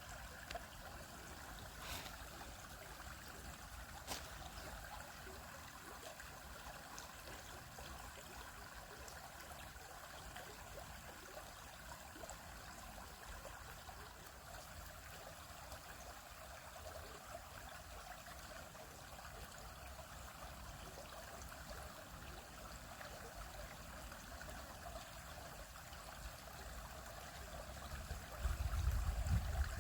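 Small stream flowing and trickling over rocks, a steady babbling. A louder low rumble comes in near the end.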